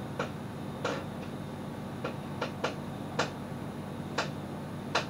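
About eight sharp clicks at irregular intervals, over a steady low hum.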